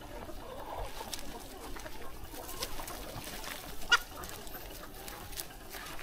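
A flock of chickens clucking, with one louder, sharp call about four seconds in.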